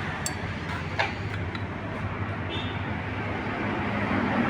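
Steady low hum with a few faint clicks, one near the start and a sharper one about a second in.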